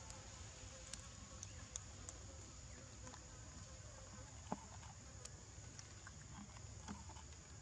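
Faint steady high-pitched insect drone, with scattered small clicks and taps; the sharpest comes about four and a half seconds in.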